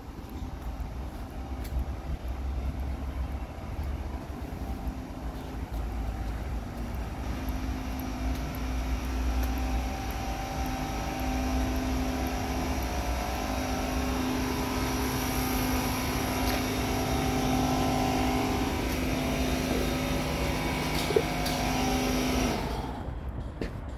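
Outdoor ambience: a low rumble under a steady engine hum that grows louder through the middle and then cuts off suddenly near the end.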